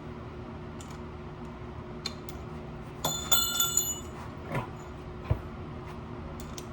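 Metal hand tools or bike parts clinking, with a short ringing metallic clatter about three seconds in, then two single knocks.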